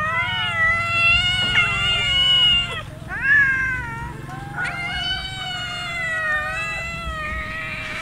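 A crowd of hungry cats meowing for food, several long drawn-out meows overlapping at once with short breaks between them.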